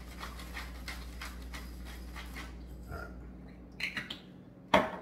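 Hand-twisted pepper mill grinding peppercorns in quick rhythmic strokes, about three a second, stopping about two and a half seconds in. A few light clicks follow, then one sharp knock near the end.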